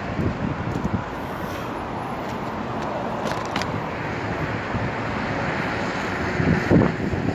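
Steady road-traffic noise from cars on the road below, with wind buffeting the microphone in gusts, strongest about a second in and again near the end.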